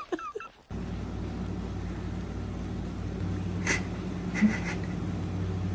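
A steady low mechanical hum, with two short, faint noises about halfway through.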